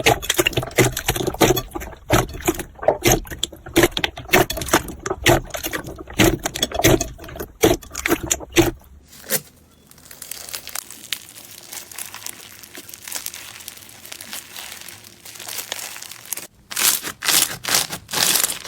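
Slime being squeezed and worked by hand: a fast run of sticky clicks and pops, then a softer crackling texture, and a few loud squelches near the end.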